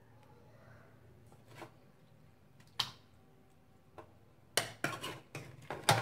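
A serving spoon knocking against a steel cooking pot and a non-stick wok as curry is scooped out and spread on rice: scattered sharp clicks, one loud one about three seconds in, then a quick cluster of louder knocks near the end.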